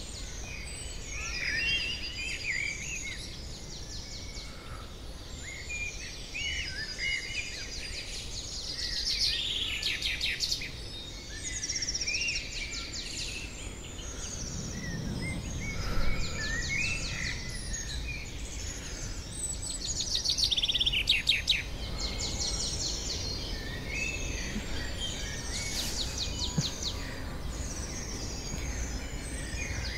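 Several wild birds chirping and singing over steady outdoor background noise, with quick rattling trills about ten and twenty seconds in. A brief low rumble comes about fifteen seconds in.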